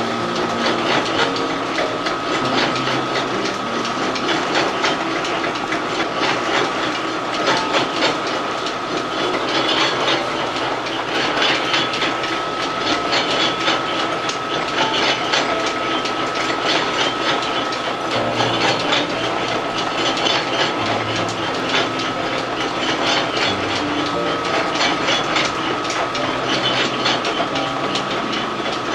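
Old noodle-making machine running, its rollers pressing dough into sheets, with a steady rapid mechanical clatter and a constant high whine.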